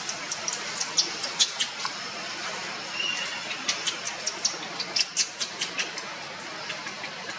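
Long-tailed macaques giving many short, high-pitched squeaks in quick, irregular succession over a steady background hiss.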